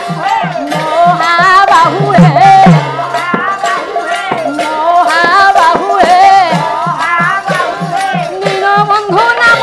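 Odia pala music: an ornamented, wavering melodic lead over a steady hand-drum beat, with small cymbals clashing.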